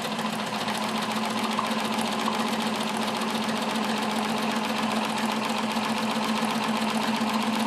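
Bernina 610 sewing machine stitching a zigzag: a steady motor hum under rapid, even needle strokes. It is not yet at full speed, since it gets a bit faster once it warms up.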